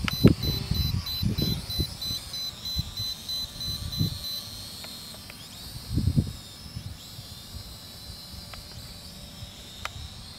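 Rapid, high-pitched electronic beeping that stops about four and a half seconds in, over irregular low buffeting on the microphone.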